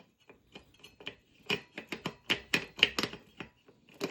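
A quick, irregular run of sharp knocks and clicks, several a second and loudest in the middle, as the road bike's crankset spindle is worked into the bottom bracket.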